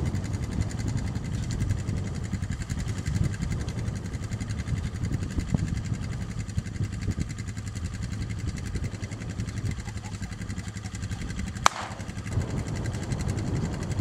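Wind buffeting the microphone, a steady low rumble, with a single sharp crack near the end.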